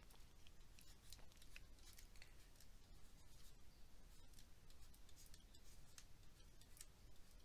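Near silence with faint, irregular taps and scratches of a stylus writing on a tablet screen.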